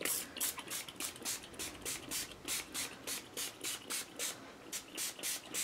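Tattered Angels Glimmer Mist pump-spray bottle pumped over and over, each pump a short hiss of fine mist, about four sprays a second.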